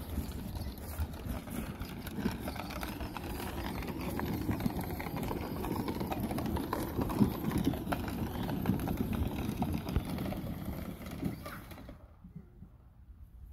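Footsteps through grass and the knocks and rustle of a phone carried while walking, stopping about twelve seconds in.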